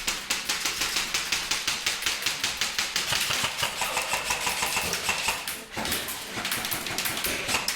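Airsoft electric gun (AEG) firing full-auto: a rapid, even stream of shots, broken off once briefly near the end and then resumed.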